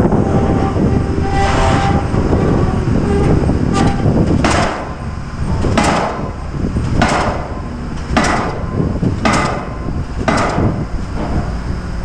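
Pile hammer driving a pile: six sharp metallic strikes a little over a second apart, each with a brief ring, starting about four seconds in. Under them runs a steady low rumble.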